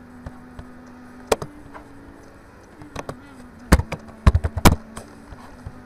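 Computer mouse and keyboard clicks close to the microphone: a few single clicks, then a quick cluster of louder clicks and knocks about four seconds in, over a low steady hum.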